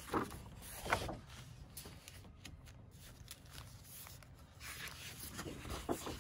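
Sheets of patterned scrapbook paper rustling and sliding as they are flipped over and laid down on a desk, with two louder rustles in the first second.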